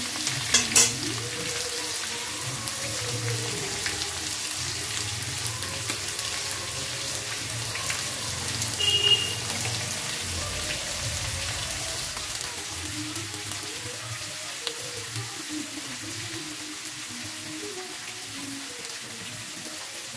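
Cubes of pumpkin frying in hot oil in a metal kadai, a steady sizzle that grows slowly quieter. Just under a second in there are a few sharp clacks of the metal spatula against the pan as the pieces are stirred.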